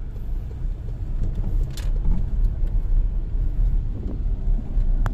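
Low, steady rumble of a car heard from inside its cabin, with a short click near the end.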